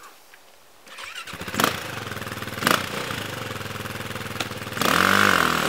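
Four-stroke single-cylinder engine of a KTM 530 dirt bike starting about a second in and running, with two sharp cracks, then revved louder near the end.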